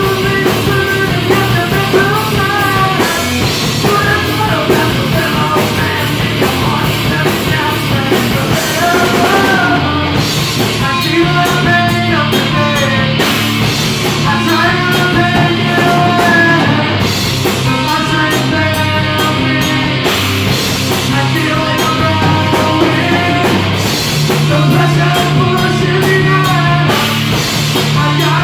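Live rock band playing: electric guitar, bass guitar and drum kit, with a singer's voice carrying the melody throughout.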